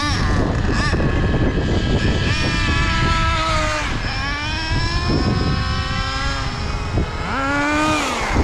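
Small nitro RC car engine revving: its high-pitched whine climbs and drops again three or four times as the car accelerates and backs off, with low rumbling noise underneath.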